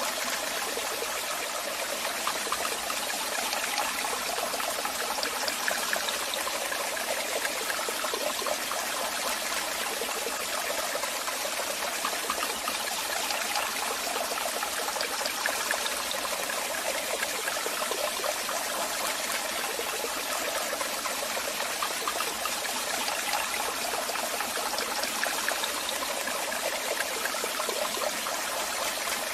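Waterfall: water falling and splashing in a steady rush, with no low rumble.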